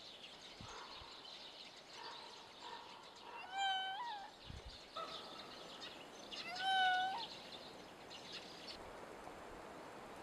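Raccoon dog giving two drawn-out, high, mewing whines, each under a second and rising slightly at the end, about three and a half and nearly seven seconds in, over a faint background.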